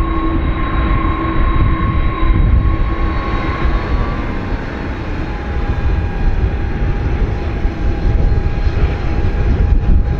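The Airbus A310-304 MRTT's General Electric CF6-80C2 turbofan engines running as the jet rolls along the runway: a deep, steady rumble with a thin engine whine, whose pitch shifts a little lower about halfway through.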